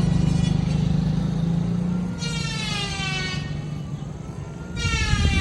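A vehicle engine running with a low rumble, then two long, high, horn-like blasts. Each lasts about a second and slides a little in pitch; the second comes near the end.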